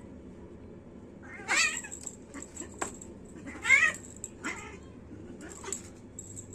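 Domestic cat meowing: about four short meows a second or so apart, the loudest near the middle, with a small click between them.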